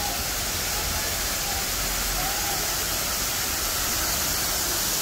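Ornamental waterfall: water spilling down a rock wall into a pool, a steady splashing rush. Faint voices can be heard under it.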